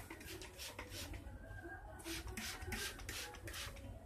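Irregular scratchy rubbing and rustling as objects are handled by hand, a quick run of short scrapes that bunch together past the middle.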